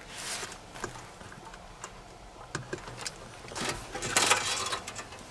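Hands tucking an electrical wire under a floor mat: rustling and scattered light clicks and taps, loudest about four seconds in.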